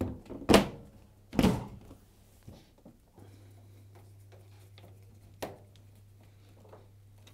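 Washing machine's sheet-metal top panel set down and seated on the cabinet: two loud knocks about a second apart. Then a few faint clicks as a screwdriver drives the top's rear screws in.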